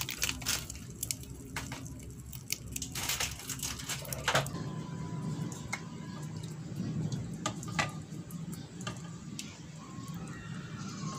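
Metal ladle scooping thick mung bean soup from a stainless steel pot into a bowl: wet dripping and squishing of the soup, with a few sharp clinks of the ladle against the pot scattered through.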